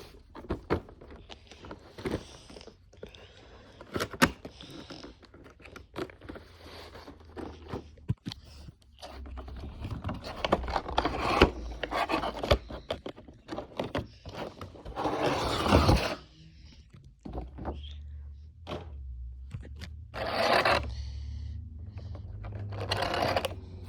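Packaging being handled while a model plane is unboxed: sharp clicks and knocks, then several longer scrapes and rustles.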